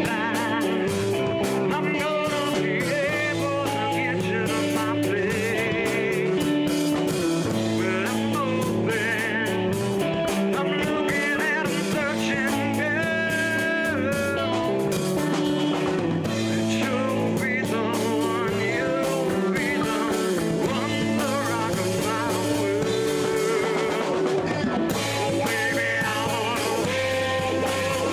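Rock band playing live: guitar over a steady bass line and drums with cymbals.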